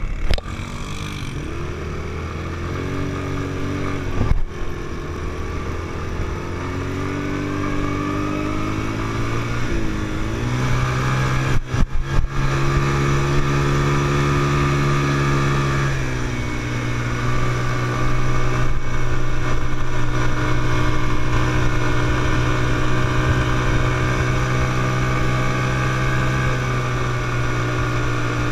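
Quad bike engine running under way, heard from the rider's seat: its pitch climbs and settles in several steps as it picks up speed. A few brief knocks come about four and twelve seconds in.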